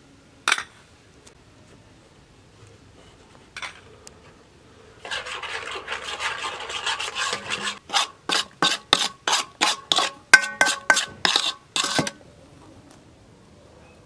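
Metal spoon stirring ground spices in a large stainless steel bowl. Two short knocks come first, then a few seconds of steady scraping, then a run of quick strokes against the bowl, two to three a second, with the metal ringing.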